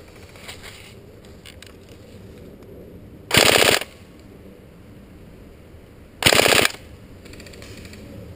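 Tokyo Marui G36C recoil-shock airsoft electric rifle firing two short full-auto bursts, each about half a second long, about three seconds apart.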